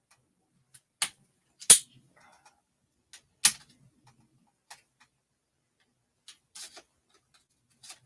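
Irregular sharp clicks and knocks of the easel's plastic and metal clamp parts being handled and adjusted, the loudest two in the first half.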